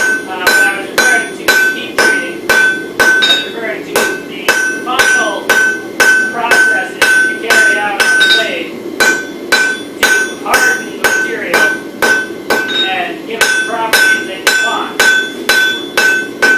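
Hand hammer striking hot wootz (crucible) steel on an anvil, about two blows a second with a couple of short pauses, each blow leaving a bright ringing tone from the anvil.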